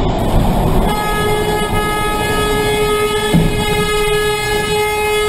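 Road and engine noise, then about a second in a vehicle horn is held down in one long, steady blast that does not let up, as a dump truck pulls out into traffic alongside.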